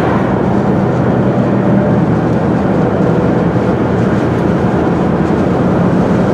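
Steady road and engine noise inside a moving car's cabin, a constant low rumble with a faint low hum.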